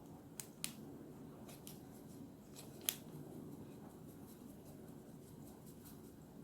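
A few faint, sharp clicks and ticks from a small plastic glitter pot as glitter is tipped and tapped into the slime mixture, over a low room hum.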